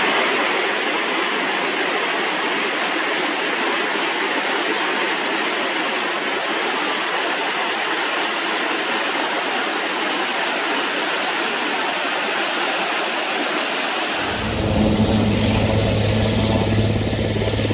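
Steady rush of flowing water. About fourteen seconds in it switches suddenly to a steady low hum.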